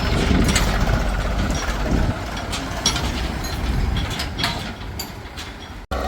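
Heavy diesel engine of earthmoving machinery running, with scattered metallic clanks and knocks over it. The level sinks after about four seconds and the sound cuts out abruptly just before the end.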